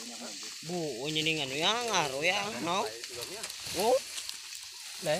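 A man's voice talking or calling out in bursts, over a steady crackling hiss.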